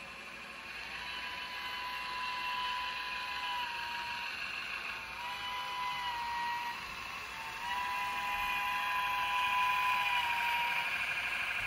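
Steam whistle from an HO scale model steam locomotive's onboard sound system, blown three times with the middle blast shorter. A steady running hiss from the moving model trains underlies it and grows louder toward the end.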